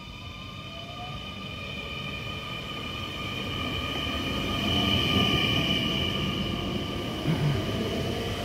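Electric multiple-unit passenger train pulling into the platform. A whine of several steady high tones from its electric drive sits over the rumble of wheels on rail, growing louder as it draws alongside. There is a short knock near the end.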